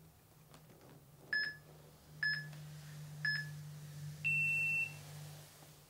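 Workout interval timer counting down: three short beeps about a second apart, then one longer, higher-pitched beep marking the end of the interval.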